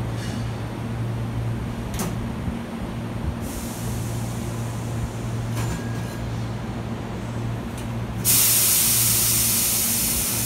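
Hankyu electric train standing at the platform, humming steadily, with a few clicks. About eight seconds in, a sudden loud hiss of compressed air from the train's air brakes starts and slowly fades.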